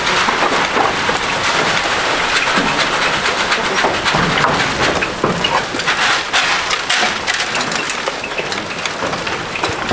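Goats eating feed at a wooden feed bunk: a dense, continuous crunching and crackling of many small clicks, with the rattle of feed and knocks against the wooden rails.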